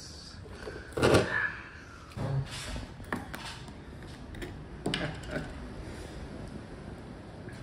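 Handling noises from taking a plastic water bottle out of a refrigerator door shelf and opening it: a few scattered knocks and rustles, the loudest a knock about a second in.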